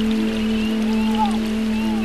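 Motor of an RC model boat running under way with a steady whine, over the wash of water along the hull. Short high chirps repeat over it.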